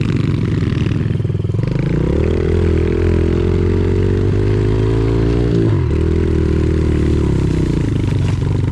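Pit bike engine running while being ridden, its pitch rising about two seconds in and holding, with a brief dip just before six seconds before it runs steady again.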